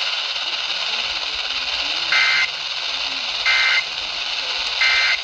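Emergency Alert System end-of-message data bursts on a weather radio broadcast: three short two-tone warbling bursts about 1.3 s apart over steady radio static, marking the end of the warning message.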